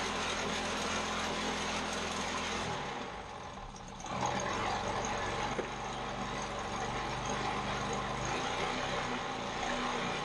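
Vertical-shaft OHV lawnmower engine, converted to run horizontally, running on a bench stand. About three seconds in its sound dips briefly, then it picks up again and its engine speed shifts up and down as the throttle linkage is worked by hand.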